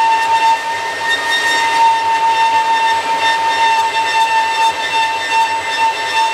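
Makita 2107F portable bandsaw running and cutting through a thin sheet, a steady high-pitched whine over a hiss.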